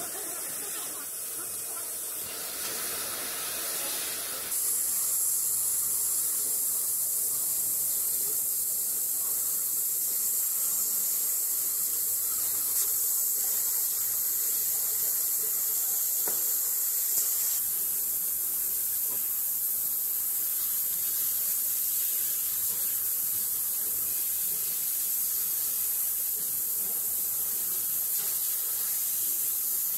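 Steady high-pitched hiss of a CO2 laser cutter cutting 5 mm MDF, mostly air-assist air blowing out of the cutting-head nozzle, with a faint low hum from the machine underneath. The hiss gets louder about four and a half seconds in and then holds even.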